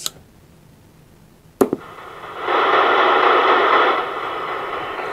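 Static hiss from a Galaxy DX 33 HML CB radio's speaker as it receives. A sharp click comes about a second and a half in. The hiss comes up about a second later, stays loud for about a second and a half, then settles to a lower steady hiss.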